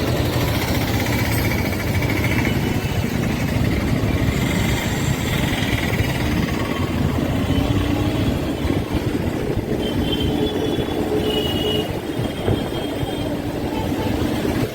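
Motorcycle engine running while riding, with a rapid, even pulsing beat under a steady rushing noise.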